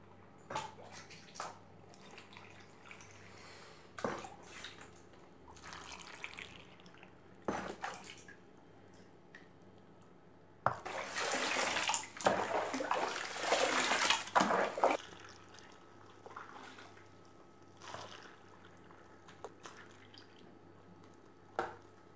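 Water poured from a bowl into a glass pickle jar packed with gherkins, filling it to the brim: scattered small splashes and knocks, then a loud gush of pouring and splashing about eleven seconds in that lasts some four seconds.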